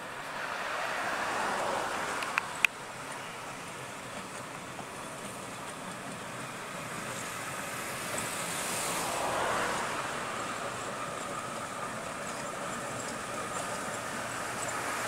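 English Electric 350 hp Class 08 diesel shunter running slowly past with two brake vans, its engine and wheels making a steady noise that swells twice as it passes. Two sharp clicks come just over two seconds in.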